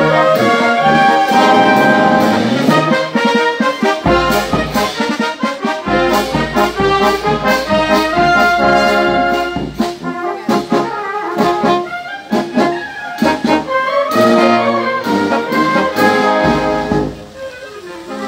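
An Italian wind band playing a march: brass and woodwinds over deep bass notes, with regular drum beats. The music softens briefly near the end.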